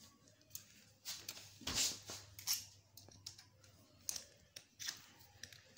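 Small plastic clicks and scraping as the hooked clips of a flat-screen TV's plastic frame are worked loose, with a louder scrape about two seconds in.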